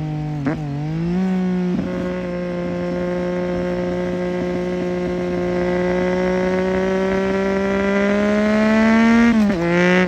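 2008 Triumph Street Triple 675's inline three-cylinder engine through a Roadsitalia aftermarket exhaust with one of its two dB killers fitted, running loud at steady high revs. The revs dip and recover about half a second in, creep slowly up through the later seconds, then drop quickly near the end.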